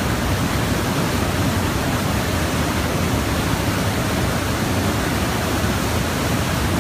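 Steady rushing noise of water flowing through a small hydro turbine.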